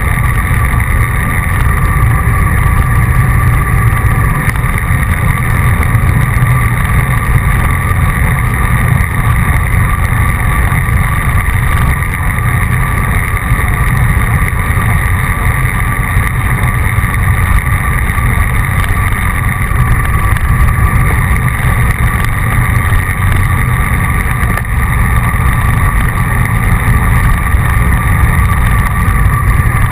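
Wind rushing over the microphone of a bicycle-mounted camera while riding at speed, a loud, steady rumble with no breaks.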